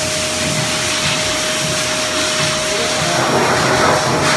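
High-velocity pet grooming dryer running steadily: a loud, even rush of air through its hose with a constant motor whine.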